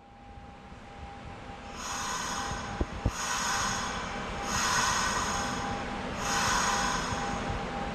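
Sounds inside the cab of a Nagoya subway 2000 series train: a steady high tone, rising in level over the first two seconds, then four surges of hissing, ringing noise about every one and a half seconds, with two sharp clicks about three seconds in.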